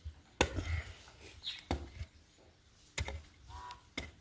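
A digging tool striking hard, stony ground, four sharp blows roughly a second apart.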